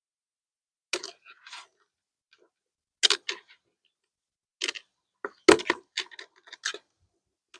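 Plastic plant pots and trays being handled and unpacked: irregular crinkles and light clacks in a few short clusters, busiest from about halfway through.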